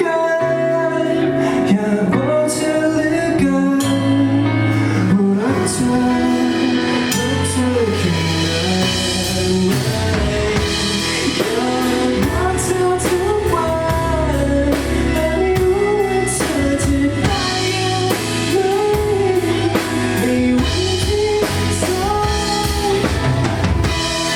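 Live band playing a song with a lead singer over drum kit and guitar.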